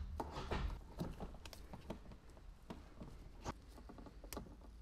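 Scattered, irregular light clicks and taps, like small objects being handled.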